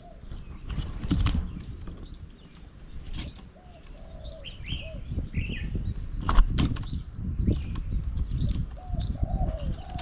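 Birds feeding at a fruit bird table: short falling chirps and low, coo-like calls repeat over a gusty low rumble of wind on the microphone. Several sharp knocks and wing flutters come from birds landing and moving on the wooden table, the loudest knock about six seconds in.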